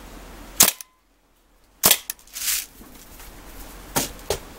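Daisy Model 74 CO2-powered semi-automatic BB rifle firing three sharp shots, a second or more apart, at soda cans, one of which is knocked off.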